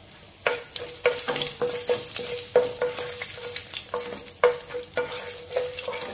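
Wooden spatula scraping and knocking around a nonstick pan, stirring whole spices and cashews frying in hot ghee, with a light sizzle. The strokes start about half a second in and come about three a second, each with a brief ring from the pan.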